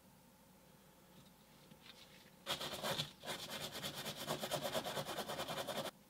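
A brass wire brush scrubbing the bare die-cast metal base of a toy car in quick back-and-forth strokes, starting about two and a half seconds in and stopping suddenly near the end. It is cleaning the base after an acid dip has stripped the oxidation.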